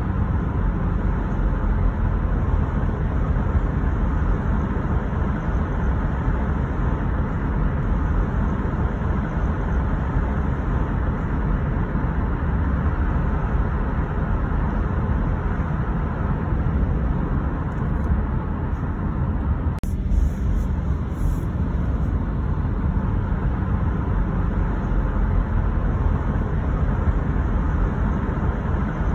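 Steady road noise of a car driving: tyre and engine rumble, strongest in the bass, with one brief click about two-thirds of the way through.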